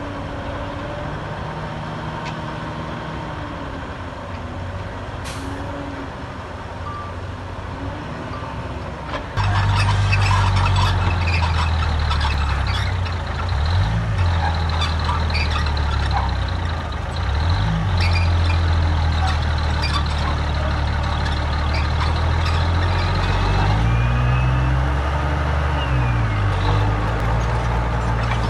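Diesel engine of heavy earthmoving machinery running. About nine seconds in it becomes much louder, and its pitch rises and falls several times over a rattle of clatter.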